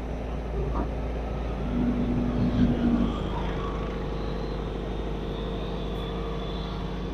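Volvo 210D excavator's diesel engine running steadily, swelling slightly in level for about a second near the middle.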